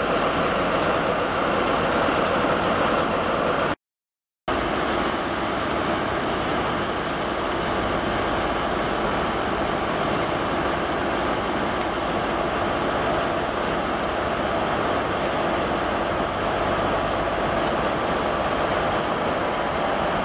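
Diesel train engines running at a station: a steady drone from idling Class 43 High Speed Train power cars, then, after a brief cut about four seconds in, the steady rumble of a diesel multiple unit running along the platform.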